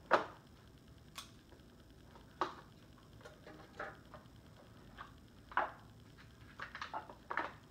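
Scattered clicks, crinkles and rustles of a small folding knife's packaging being pried open by hand, the sharpest snap right at the start and a quick cluster of clicks near the end.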